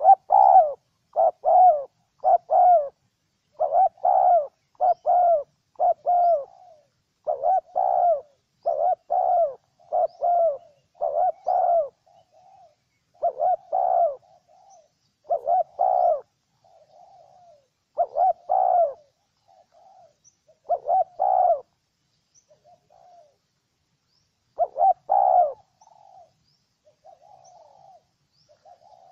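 Spotted dove cooing: a long series of short coos in quick runs, broken by short pauses, with fainter calls in between.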